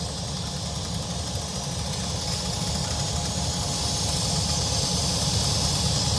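Diesel locomotives idling with a steady low rumble, the switcher being held at idle to warm up. A high hiss builds toward the end.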